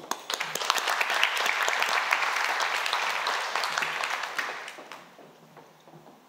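Audience applauding in a hall. The clapping builds within the first second, holds, then dies away by about five seconds in.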